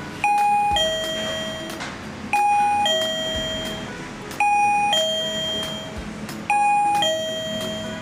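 KERUI M525 wireless doorbell receiver playing its electronic ding-dong chime after the push button is pressed: a short higher note dropping to a longer, fading lower note, four times about two seconds apart.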